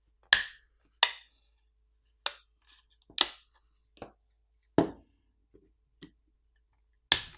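Plastic snap-fit catches of a video doorbell's faceplate popping loose one after another as a plastic pry pick is worked around its edges: about eight sharp clicks spread irregularly, the loudest near the start and at the very end.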